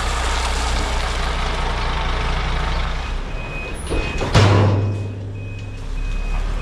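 Heavy vehicle's diesel engine running, with a reversing alarm sounding a steady series of short beeps from about three seconds in. The engine swells louder about four seconds in.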